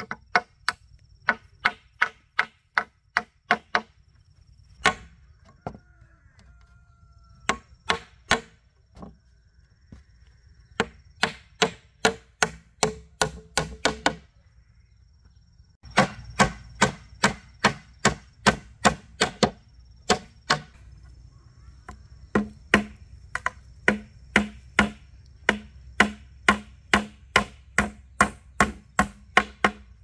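Hammer driving nails into wood: quick runs of sharp blows, about two to three a second, broken by short pauses, the longest lasting about two seconds near the middle.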